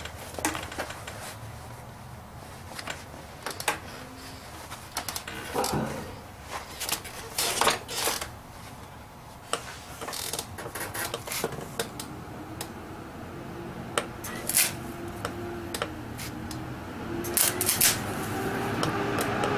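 Irregular sharp metallic clicks and taps from work on a car's steel quarter panel, with a faint hum coming up in the second half and growing louder near the end.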